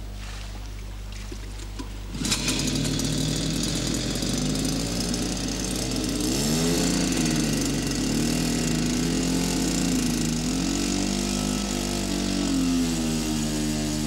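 Small engine driving the boat's water-jet pump starts about two seconds in and then runs steadily, its speed rising and falling a few times.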